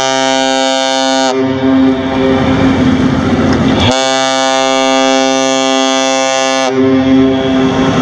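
Synthesized ship's horn for the cargo ship MV Federal Asahi: a deep, rich horn tone that cuts off with a slight drop in pitch about a second in, sounds again at about four seconds and stops near seven. Between the blasts a rougher, noisier horn sound carries on.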